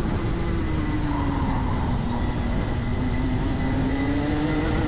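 Rotax Max 125cc two-stroke kart engine heard onboard, its pitch falling as the kart slows for a corner and then rising again about halfway through as it accelerates out.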